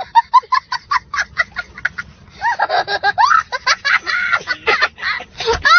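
A small child laughing hysterically: quick high-pitched hiccuping bursts, breaking into longer squealing whoops about halfway through, then more quick bursts near the end.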